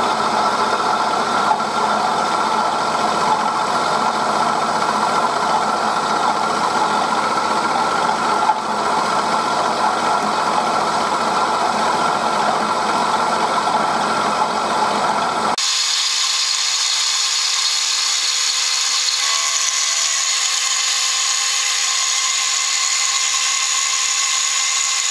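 Bridgeport M-head milling machine running, its end mill cutting into a metal cylinder block under flood coolant with a steady grinding hum. About two-thirds of the way through, the sound switches abruptly to a thinner, higher version with the deep part gone.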